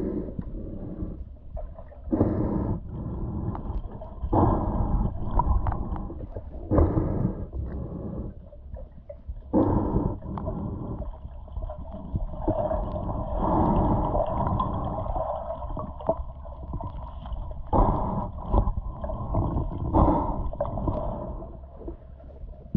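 Muffled underwater sound picked up through a camera's waterproof housing while the camera is submerged: a constant low rumble of water with whooshing swells every two seconds or so.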